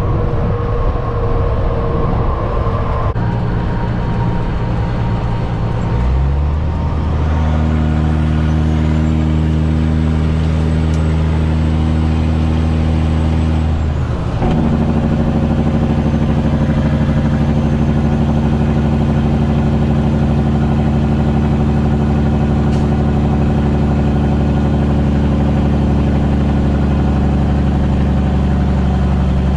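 Caterpillar C-15 diesel engine of a Kenworth T800 heard from inside the cab, pulling steadily under load. There is a short break in the engine sound about halfway through, where a gear is shifted, and then it runs steady again.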